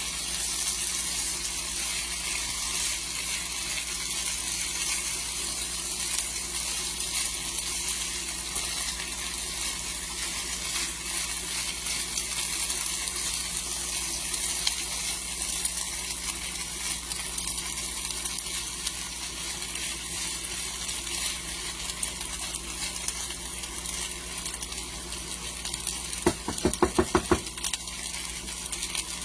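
Sliced potatoes frying in a pan, a steady sizzle on lowered heat. Near the end comes a quick run of about six sharp clicks or taps.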